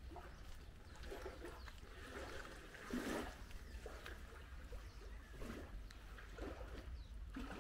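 Footsteps of a person walking on a concrete path, soft thumps about one a second, the loudest about three seconds in, over a low steady rumble.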